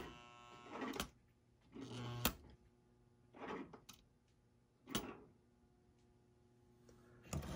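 Vintage Lionel toy steam locomotive being switched on and off on its track: a sharp click and a short electric buzz, then a few more faint clicks and brief noisy bursts. The locomotive is stalled and won't run.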